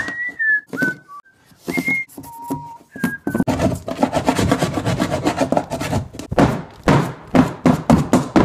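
A few short high squeaks as a marker draws lines on glossy beadboard paneling, then a small hand saw rasping back and forth through the paneling, and from about two-thirds of the way through, hard blows knocking into the panel as it is broken open.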